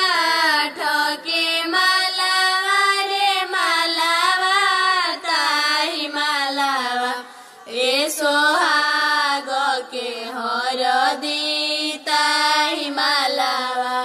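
A woman singing a slow, ornamented Bhojpuri song melody, her pitch sliding and wavering between long held notes, in phrases with short breaks between them.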